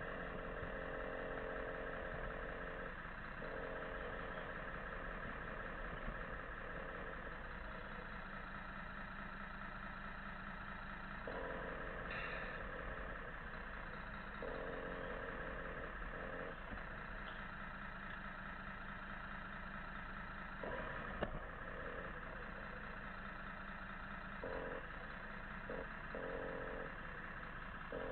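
Scale RC truck running on the track, a steady engine-like drone with a hum that cuts in and out every few seconds as it drives. A single sharp knock about two-thirds of the way through.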